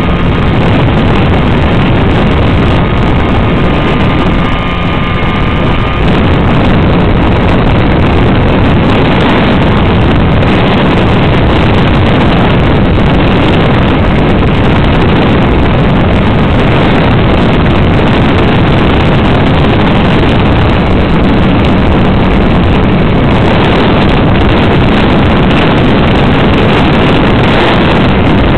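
The engine of a radio-controlled model Sopwith Camel, heard together with rushing air from a camera mounted on the plane in flight; loud and steady, with a slight dip about four to six seconds in.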